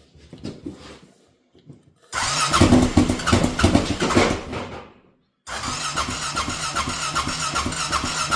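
Honda Rincon 650 ATV engine being cranked to start. About two seconds in it catches and sputters loudly and unevenly for about three seconds, then dies. After a short pause it is cranked again with a steady, rhythmic churn that does not catch: a hard start with the tank nearly empty and on reserve.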